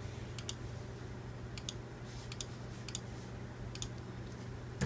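Computer mouse clicking: about five clicks, each a quick press and release, spread a second or so apart over a steady low hum.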